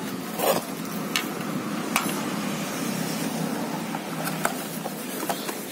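A few light knocks and clicks as a small metal receiver and a cardboard box are handled on a tiled floor, over a steady low background rumble.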